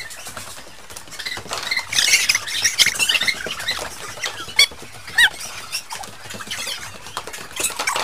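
Quick high-pitched squeaks and squeals from a group running and chasing about on a wooden floor. They come thickest in the first half, with two sharp knocks near the middle.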